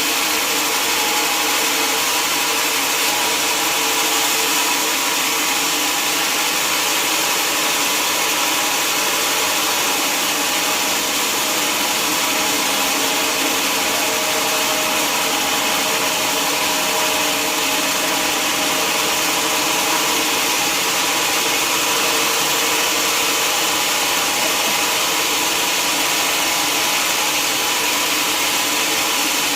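Sawmill saw running steadily: a constant loud rushing noise with a steady hum, level and unchanging throughout.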